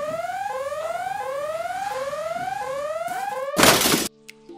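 Alarm siren whooping, a rising tone repeating about one and a half times a second. Near the end a loud noisy blast cuts it off suddenly.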